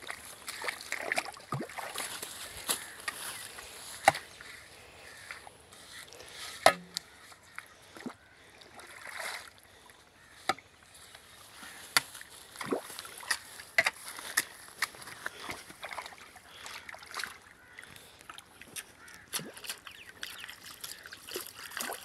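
Broad-bladed hoe chopping into and scooping wet mud in a shallow irrigation ditch, with water sloshing. Irregular sharp strokes, the loudest about four and seven seconds in.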